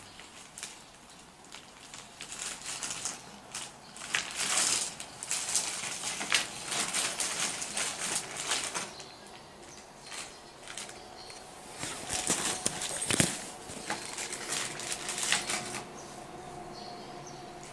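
Irregular clicking and rustling handling noise, in two long clusters with a sharper click about thirteen seconds in, like plastic pieces being handled and moved on a tabletop.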